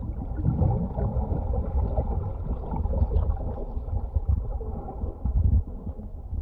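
Water noise heard through an underwater camera: a steady, muffled low rumble with bubbling and swishing water as a skin diver swims close by.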